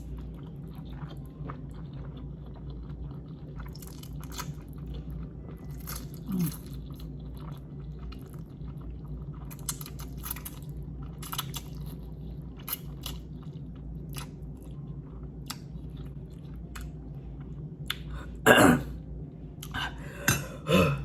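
A person chewing a big mouthful of instant noodles close to the microphone, with many small wet mouth clicks. About 18 seconds in there is a sudden loud throat sound, and a shorter one just before the end.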